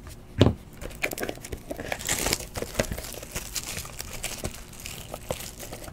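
Clear plastic shrink wrap being torn and crinkled off a trading-card box, with irregular crackling throughout and a thump about half a second in.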